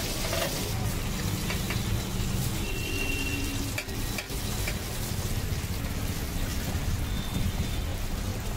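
Batata vadas deep-frying in a wok of hot oil, a steady sizzle throughout, with a few metal clinks of the steel skimmer against the wok about four seconds in as the batch is lifted out.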